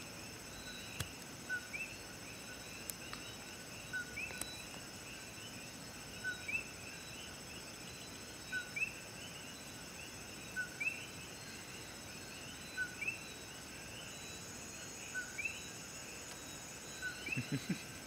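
Coquí frogs calling their two-note 'co-qui' over and over, roughly every two seconds: a short low note followed by a higher rising one. Underneath is a steady high-pitched trilling of insects.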